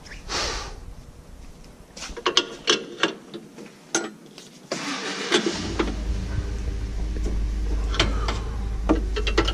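A few clicks and knocks, then the Kubota B2601's three-cylinder diesel engine cranks and starts about five seconds in, settling into a steady idle.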